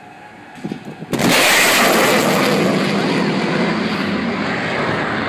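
F/A-18 fighter jet's supersonic fly-by: a sudden sharp sonic boom about a second in, followed at once by the loud, sustained roar of its twin jet engines passing low overhead.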